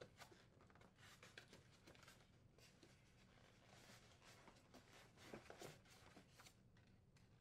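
Near silence, with faint scattered rubs and clicks of polystyrene foam insulation being handled and pulled apart, a little louder about five and a half seconds in.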